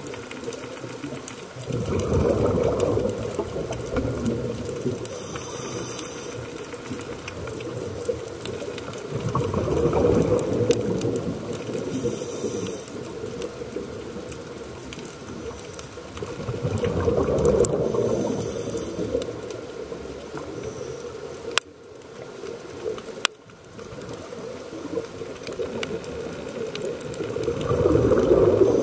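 Scuba diver breathing through a regulator underwater: a bubbling rush of exhaled air about every seven or eight seconds, with a short hiss of inhalation through the regulator in between.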